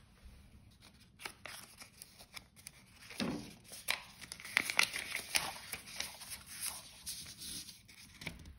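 Paper rustling and crinkling as the torn card tube of a pulled Christmas cracker is handled and its folded paper joke slip is taken out and unfolded, a run of quick crackles busiest about three to six seconds in.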